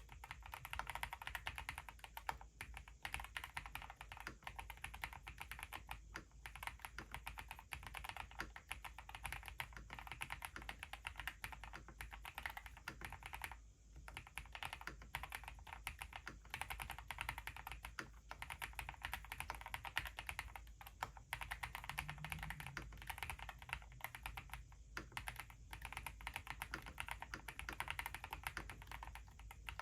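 Tiger 80 Lite mechanical keyboard with Haimu Midnight switches and CMK Classic Blue keycaps being typed on in steady, fast runs of keystrokes. The typing pauses briefly about 13 seconds in and again about 25 seconds in.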